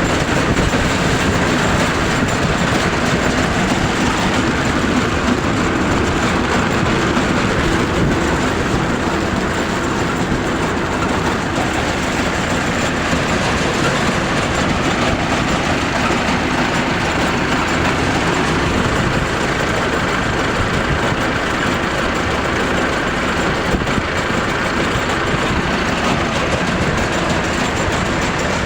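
Sunflower threshing machine running steadily with a loud, even mechanical clatter.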